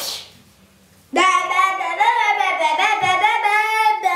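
Furby Boom toy singing a melody in its high-pitched voice, starting about a second in.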